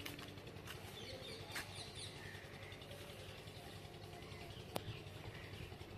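Faint birds chirping now and then over a low steady hum, with a few sharp clicks, the loudest a little before the end.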